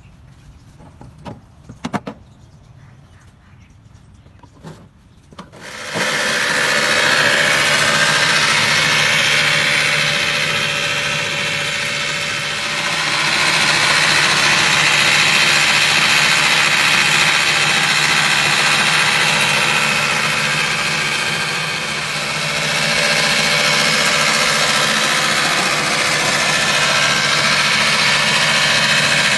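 Electric reel (cylinder) lawn mower with a 2 hp motor: a few clicks and knocks as it is handled, then about six seconds in the motor starts suddenly and runs steadily with a low hum under the loud whir of the spinning reel cutting grass, dipping slightly twice.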